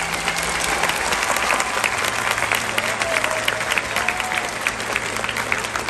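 Large audience applauding: many hands clapping densely, swelling up at the start and then holding steady.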